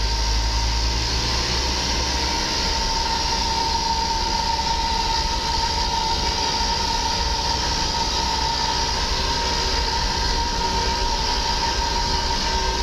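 Steady drone of a vehicle driving along a road: engine and tyre noise with a low rumble and a steady high whine, unchanging throughout.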